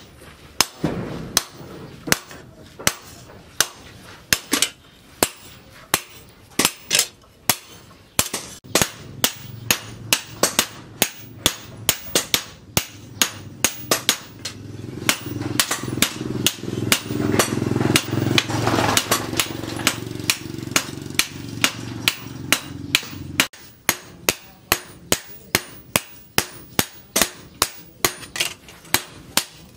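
Hammers striking a red-hot cleaver blade of tractor-disc steel on a round steel post anvil: two smiths hammering in turn, a sharp ringing blow about every half second. A steady low hum runs under the blows for several seconds in the middle.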